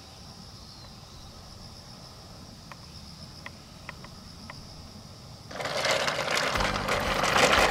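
Quiet outdoor ambience with a steady high insect drone and a few faint short chirps. About five and a half seconds in, loud background music starts and carries on.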